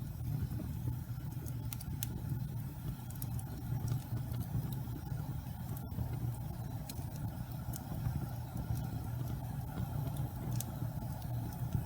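Wood fire burning in a fireplace: a steady low rumble with scattered, irregular sharp crackles and pops.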